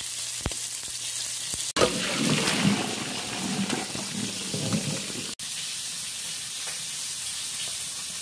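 Pot of water at a rolling boil with potatoes in it, a steady hiss and bubbling. About two seconds in comes a louder stretch of splashing and gurgling as the boiling water is poured off the potatoes through a metal colander, in a cloud of steam.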